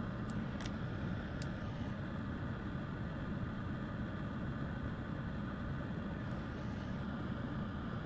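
Steady low rumbling background noise, with a few faint clicks in the first second and a half.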